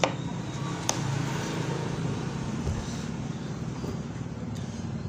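Steady low rumble of a motor vehicle engine running, with a single light click about a second in.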